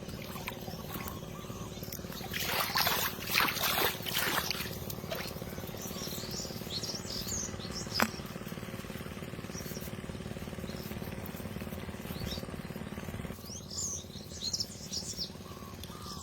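Small birds chirping in short, high calls, with a burst of noise a few seconds in and a single sharp click about halfway through.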